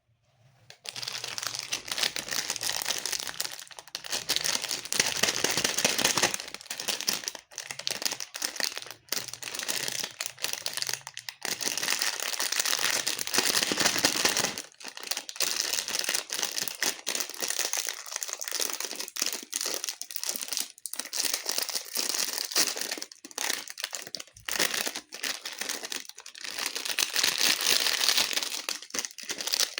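Plastic candy wrappers crinkling and tearing as sweet packets are handled and opened, going on almost without a break, with a few short pauses.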